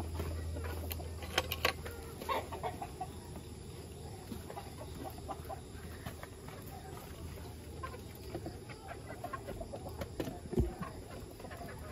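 Chickens clucking now and then, with a few sharp knocks, one about a second and a half in and one near the end.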